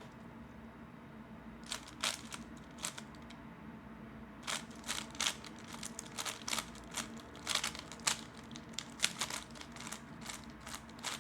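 3x3 Rubik's cube being turned by hand during a scramble, its layers clicking in quick, irregular runs: a few clicks about two seconds in, then a steady stream of them from about four and a half seconds on. A faint steady hum sits underneath.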